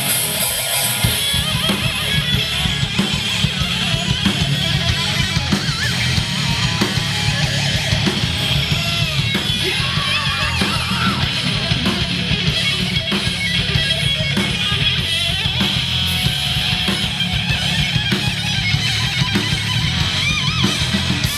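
Live hard rock band: an electric guitar solo with wavering, bent notes over a pounding drum kit.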